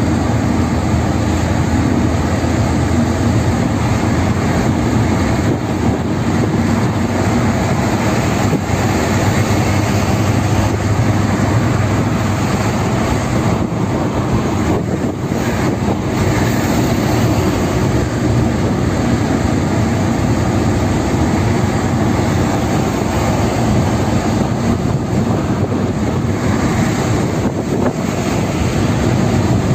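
Steady drone of a car driving at speed on a highway, heard from inside the cabin: tyre and road noise with a low engine hum.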